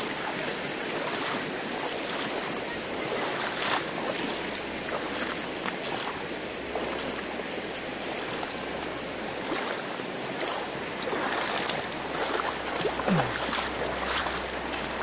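Steady rush of a shallow river running over rocks, with scattered knocks and splashes of footsteps wading through the water and stepping on stones.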